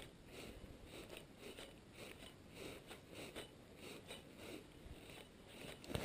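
Faint, even ticking of a spinning reel being cranked during a lure retrieve, about two to three turns a second.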